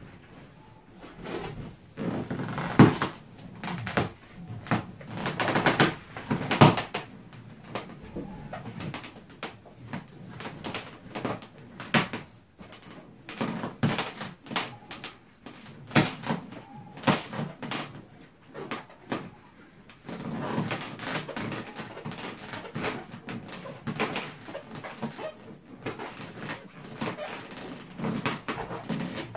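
Large clear latex balloon squeaking and rubbing as it is pressed and sat on, with fur brushing over it and scattered thumps and creaks, the loudest a few seconds in; the balloon does not pop.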